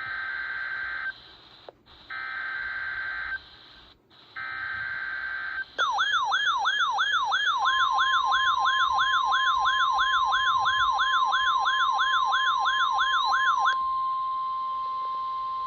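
NOAA Weather Radio alert tones: three short bursts of SAME header data, then a steady 1050 Hz warning tone. Over most of the tone a receiver's alarm sweeps up and down about three times a second, then stops near the end while the steady tone holds on.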